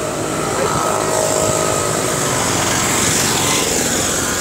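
A motor vehicle's engine running close by, steady, with its pitch falling near the end as it passes.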